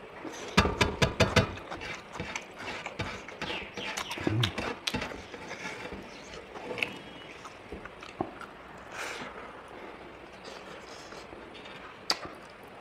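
Close-up eating sounds of a person chewing chicken wings, with a quick run of clicking and smacking about a second in, then scattered softer clicks and one sharp click near the end.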